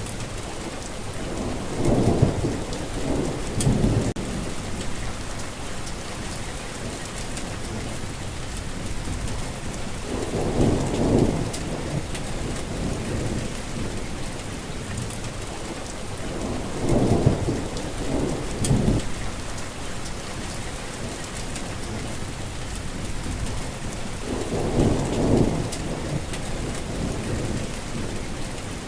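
Heavy rain falling steadily, with rolls of thunder rumbling through it about every seven seconds, four times.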